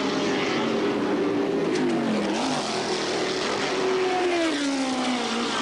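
Historic sports-racing cars' engines running at speed on the circuit, several engine notes heard at once. About two-thirds of the way in, one car's engine note falls steadily in pitch.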